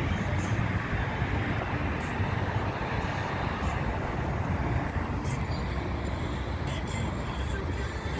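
Steady low rumble of a departing jet airliner's engines heard at a distance.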